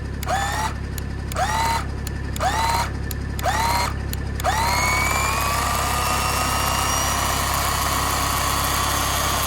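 Ryobi cordless electric chainsaw's motor blipped with several short trigger pulls, each a whine rising in pitch, then about four and a half seconds in it is held on and runs continuously, the pitch slowly creeping upward. The saw is being warmed up: too much heavy grease in the cold gear case is slowing the chain down.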